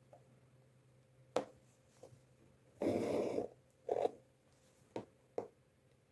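Quiet handling of an embroidery hoop and its cotton cloth: a few light ticks and taps, with a brief rustle of fabric about three seconds in, the loudest sound, and a shorter one just after.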